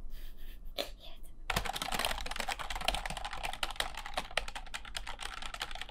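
Typing on a full-size computer keyboard: a few scattered key presses, then from about one and a half seconds in a fast, dense run of key clicks.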